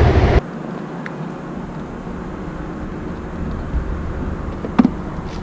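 Steady low hum of an idling scooter engine, with a single sharp knock near the end.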